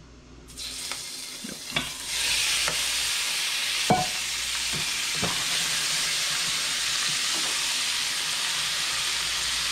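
Raw shrimp frying in a hot pan: a faint sizzle grows into a steady, loud sizzle about two seconds in as the shrimp go into the fat. A few light knocks of utensil or shrimp against the pan come through it.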